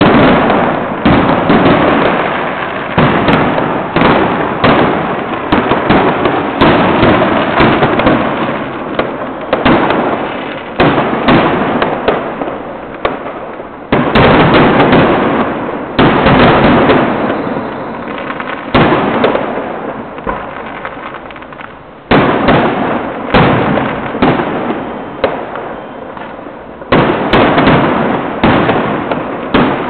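Fireworks going off in a loud, continuous barrage of sharp bangs, about one or two a second, each trailing off before the next.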